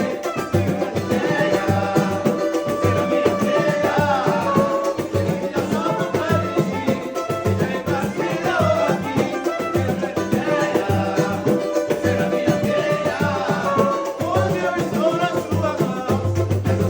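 A samba-pagode group playing a song: dense, busy percussion over a pulsing bass line, with singing and melody on top.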